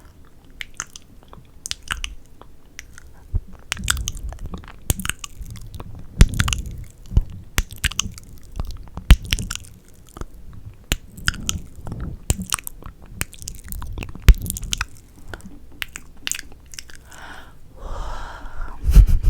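Close-miked ASMR mouth sounds: wet lip smacks, kisses and tongue clicks in a quick, irregular run, with a longer breathy sound near the end.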